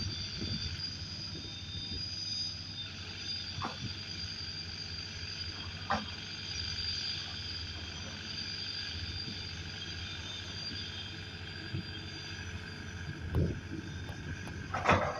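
Sakai road roller's diesel engine running steadily as the roller drives slowly over sand, with a few short knocks and clunks.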